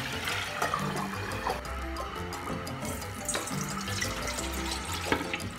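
Background music over liquid pouring and splashing in a sink: coconut milk poured from a bowl through a wire-mesh strainer to separate it from the grated coconut.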